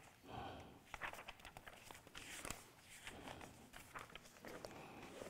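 Faint paper rustling and soft ticks as the pages of a large altar missal are turned by hand.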